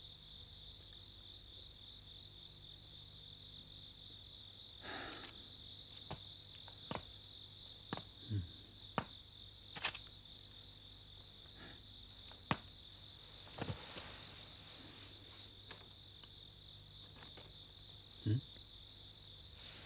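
Crickets chirring steadily as night ambience, with a few faint scattered clicks and knocks over it.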